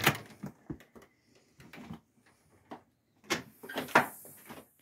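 Scattered knocks and clicks of a door and footsteps on a wooden deck, loudest right at the start and in a cluster of several sharp knocks about three to four seconds in.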